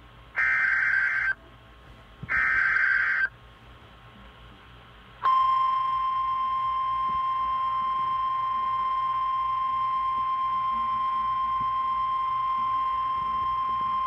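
Emergency Alert System SAME header: two buzzing data bursts about a second long, a second apart. About five seconds in, the steady 1050 Hz NOAA Weather Radio warning alarm tone starts and sounds for about nine seconds, stopping near the end. The header and tone announce a Special Marine Warning.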